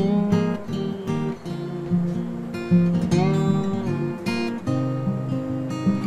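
Background music: acoustic guitar strumming chords, with a few sliding notes.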